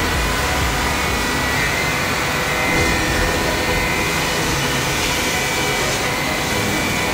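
Woodmaster automatic tool-change CNC router spindle machining a solid-wood panel, a steady high whine over the rush of the cutting.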